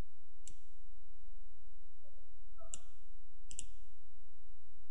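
Computer mouse button clicks, a few separate sharp clicks with two in quick succession about three and a half seconds in, over a steady low background hum.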